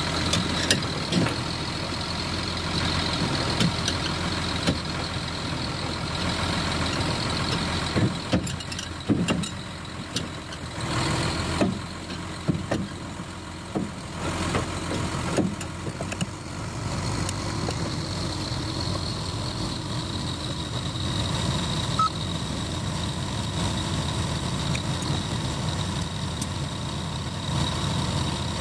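Heavy truck's diesel engine running steadily. It is pulling a lowbed trailer loaded with a dozer. A scatter of short clicks and knocks comes through the middle.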